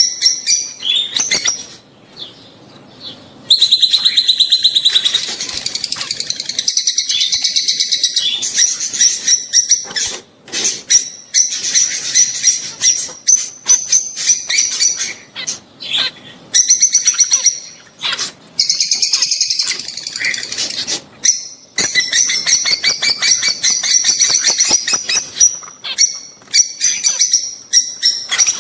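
Lovebirds, rosy-faced and Fischer's, chattering in rapid high, shrill chirps that run on in long unbroken stretches after a short lull near the start. These are their mating calls.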